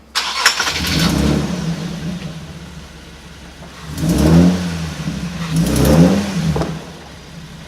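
Nissan 370Z's 3.7-litre V6 revving in throttle blips as the car is driven slowly up onto car ramps. The revs rise and fall three times: just after the start, at about four seconds, and at about six seconds.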